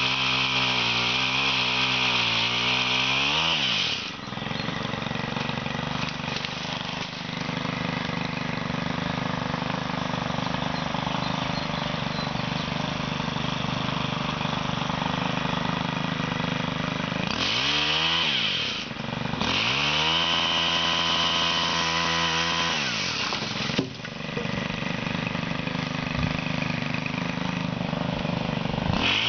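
Gas-powered pole saw's small engine revving at full throttle, dropping back to a steady idle about four seconds in. It revs up again briefly around eighteen seconds, holds high for about four seconds from around nineteen, drops back, and revs up once more near the end.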